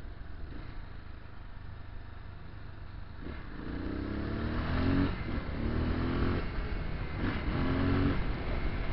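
Motorcycle engine, heard from the rider's seat, running low for about three seconds and then accelerating, its pitch rising through three gears with a short break at each shift.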